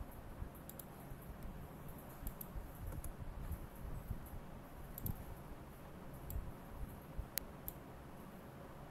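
Scattered computer mouse clicks, a dozen or so separate clicks with the sharpest about seven seconds in, over a low steady background rumble.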